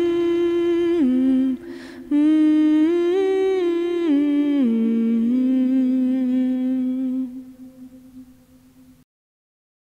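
A lone voice humming a slow melody in steps from note to note, with a breath taken about two seconds in; the last low note is held and fades out, stopping about nine seconds in.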